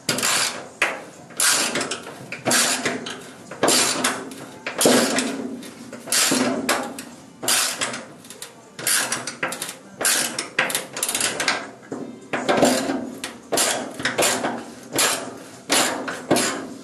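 Hand socket ratchet on an extension turning bolts in a VW Bus floor flange, clicking in short back-and-forth strokes about two a second, with a brief pause about two-thirds of the way through.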